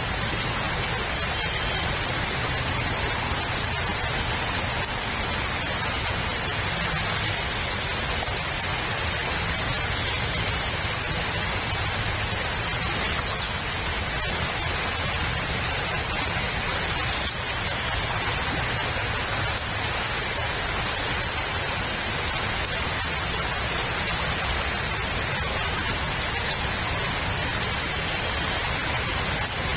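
Steady rain falling on the nest camera's surroundings: an even, unbroken hiss of drops.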